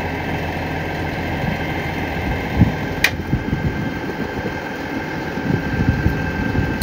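Rollback tow truck's engine running steadily at idle, with a sharp click about three seconds in and a few knocks from the bed and its load.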